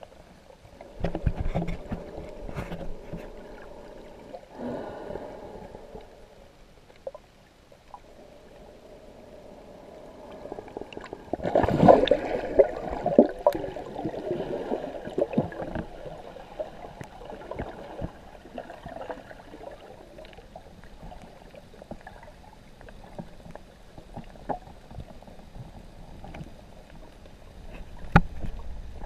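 Muffled underwater sound picked up through an action camera's housing: water sloshing and gurgling, with scattered clicks and knocks. There is a louder rush of noise about twelve seconds in and a sharp knock near the end.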